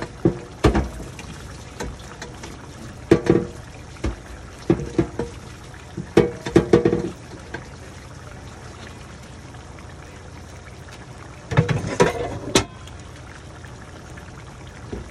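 Thick chicken curry simmering in a nonstick pan, with a steady low bubbling and clusters of plopping bubbles bursting every few seconds. The sauce is being cooked down to thicken it.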